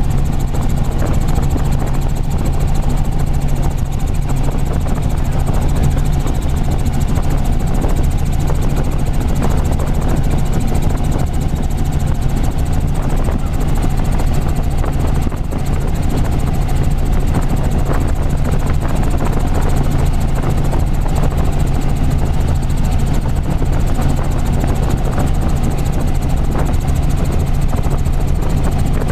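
Robinson R44 helicopter in steady cruise, its engine and rotor heard from inside the cabin as a steady, unbroken low drone.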